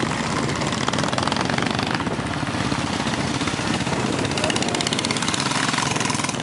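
Motorcycle engines running steadily at low road speed, heard from on a moving motorcycle.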